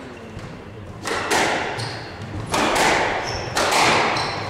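Squash rally: a squash ball struck by rackets and hitting the court walls, several sharp hits echoing around the court, starting about a second in. Short high squeaks of sports shoes on the wooden floor come between the hits.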